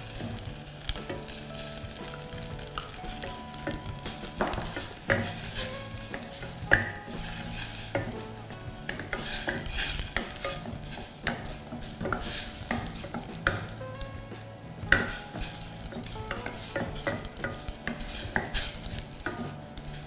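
A wooden spoon stirring and scraping green curry paste as it fries in coconut cream in a stainless steel saucepan, with a steady sizzle and irregular scrapes against the pan.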